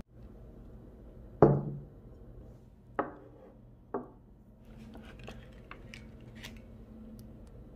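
Ceramic tableware set down on a wooden table: one loud knock, then two lighter knocks about a second apart as a small ceramic bowl is put down. Faint small clicks and rustling follow as a thin sheet of rice paper is handled over a ceramic plate.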